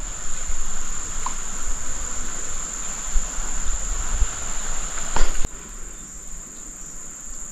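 Insects trilling steadily in one high, unbroken tone. A sharp click comes a little after five seconds in, after which the background hiss under the trill drops away.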